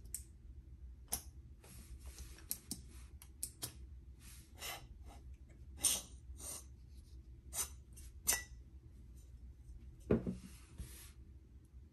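Aluminium-shelled precision screwdriver case being handled: repeated small clicks, scrapes and rubs as the magnetic bit tray is slid out of its square sleeve. About ten seconds in comes a heavier knock on the tabletop, the loudest sound.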